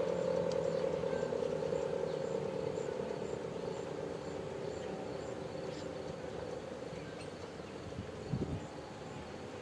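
Federal Model 5T outdoor warning siren winding down, its tone slowly falling in pitch and fading. A low thump about eight seconds in.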